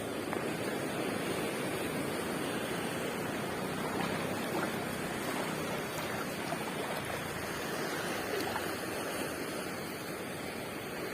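Sea surf washing on the beach: a steady rushing noise.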